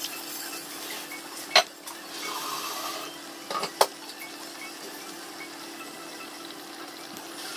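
Kitchen clatter over a steady hum and faint hiss: two sharp clacks of kitchenware, the first about one and a half seconds in and the loudest, the second about two seconds later.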